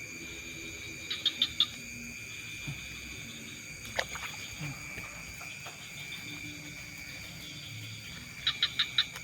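Night chorus of crickets and other insects, a steady high-pitched trilling. Twice, a short run of four or five quick loud chirps stands out, about a second in and again near the end.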